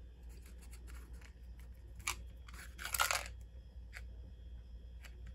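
A thin plastic portion cup holding two whole cloves, handled and turned in the hand: a short scratchy noise about two seconds in and a longer one about three seconds in, with a few faint ticks, over a steady low hum.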